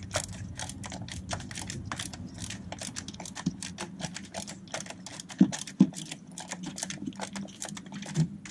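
Hand ratchet clicking in a fast, even run of sharp clicks as it turns a deep 13 mm socket on an extension, backing a starter-motor bolt out by hand, over a low steady hum.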